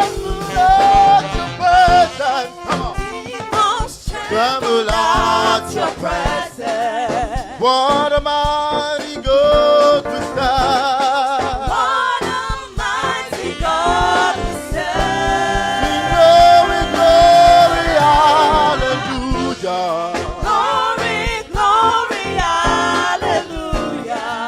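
Gospel choir singing a worship praise song, with sustained, wavering sung notes over a steady low musical backing.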